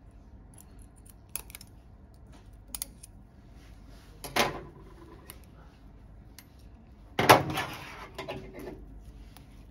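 Handling noise of surgical instruments: a few light metal clicks from the forceps and needle holder, then two louder knocks about four and seven seconds in, the second the loudest, as instruments are handled and set down.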